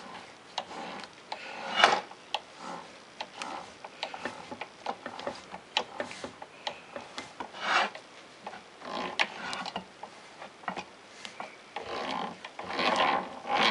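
Tap being started into a hole in a metal block by turning a drill press chuck by hand: irregular scraping rasps and clicks as the tap cuts its first threads, busier near the end.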